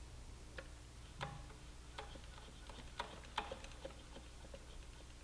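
Faint, irregular small clicks and taps from a wrench being worked on a motorcycle rear brake caliper's bleeder screw while bleeding the brakes, over a low steady hum.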